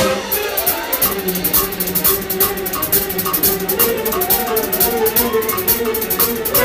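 Live orchestra with a jazz rhythm section playing up-tempo music: fast, even percussion strokes drive a steady beat under held notes, and a melodic line rises and falls near the middle.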